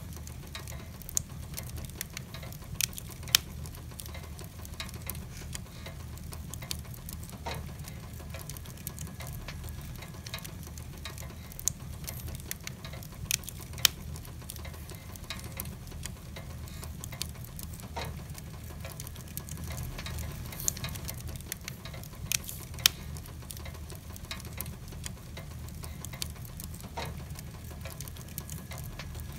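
Wood logs burning in a fireplace: irregular crackles and sharp pops, with a few much louder snaps scattered through, over a steady low rumble.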